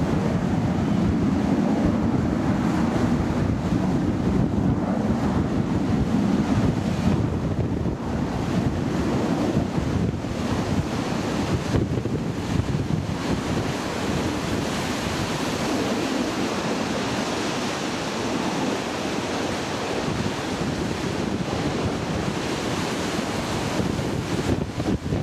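Steady jet roar from a formation of nine BAE Hawk T1 jets passing overhead, mixed with wind buffeting the microphone; the roar turns hissier about halfway through.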